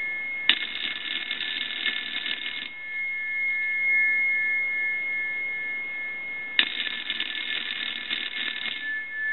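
Northern Electric Galion rotary telephone's two-gong ringer ringing twice, each ring about two seconds long with about four seconds between, the usual ringing cadence; the repaired and adjusted bell circuit is working. A steady high tone sounds underneath.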